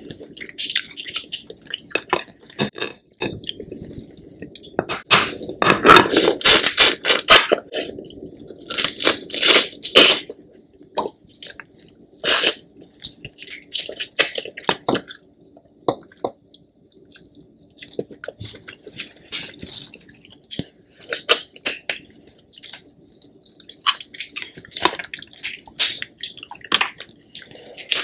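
Close-miked eating of sauced king crab legs: crab shell crackling and being picked apart, with wet chewing and mouth sounds. A dense run of crackling comes about five to eight seconds in, with shorter ones around ten and twelve seconds.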